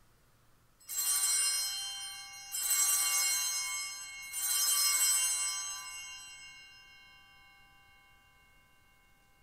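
Altar bells rung three times at the elevation of the consecrated host, each ring a bright jangle of several high bell tones that fades slowly, the last dying away about halfway through.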